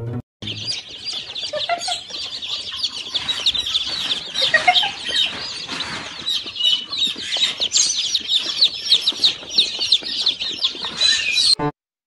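A crowd of baby chicks peeping: dense, overlapping high cheeps, many a second, without a break. It starts about half a second in and cuts off suddenly just before the end.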